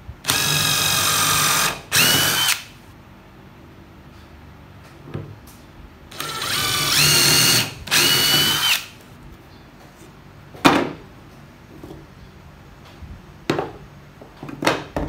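DeWalt 18V cordless impact driver spinning a drill bit into a plywood strip in four short runs, two pairs close together, the motor whine rising as the trigger is squeezed and then holding. A few sharp knocks follow in the second half.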